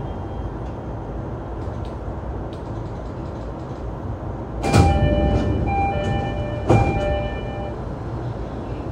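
Low steady rumble of an E233-3000 series electric train car. About halfway through, the passenger doors go with a loud thud, and the repeated two-tone door chime rings for about three seconds, with a second thud about two seconds after the first. This is the train opening its doors at a station stop.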